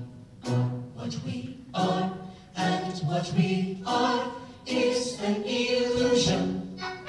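A mixed-voice a cappella group singing in harmony into microphones, in short phrases with brief pauses between them.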